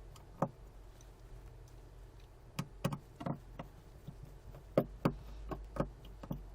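Scattered sharp clicks and light knocks of a small screwdriver working tiny screws out of an iPhone 5's housing, over a faint low hum.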